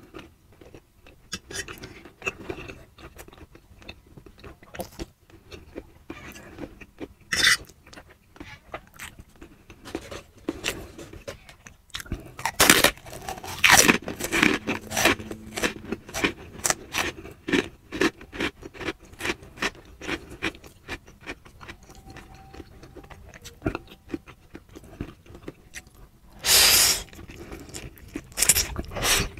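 Close-miked chewing and mouth sounds of someone eating fried instant noodles and oden, a steady run of small wet clicks. Louder noisy bursts of noodle slurping come about halfway through and again near the end.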